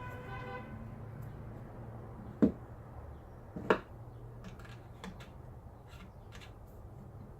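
Two sharp clinks about a second apart, each with a short ring, then a few fainter clicks, as metal parts are handled and set down, over a steady low hum.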